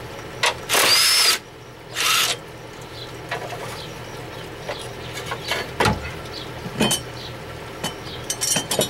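Cordless drill running in two short bursts, about a second in and again at two seconds, the first with a rising whine, backing out the fasteners of the radiator bracket on a 1996 GMC truck. Scattered light metallic clinks and taps of tools and parts follow.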